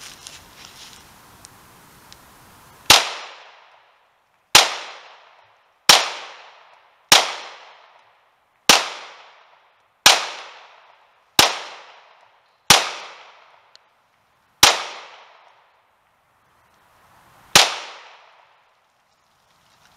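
Glock 17 Gen 4 9mm pistol firing ten single shots of 115-grain silvertip ammunition, roughly one shot every one and a half seconds, with the last two more widely spaced. Each shot is followed by an echo that fades over about a second.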